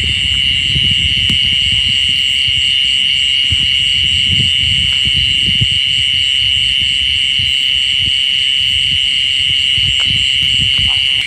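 Loud insect chorus: a steady high-pitched buzz with a fast pulsing shimmer above it, over a low irregular rumble.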